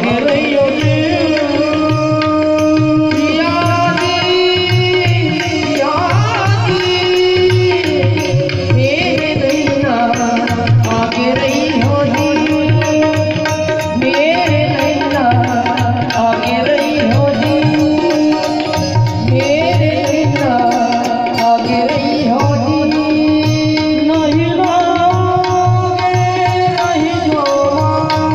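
Music: a melody that slides between notes over a steady drum rhythm.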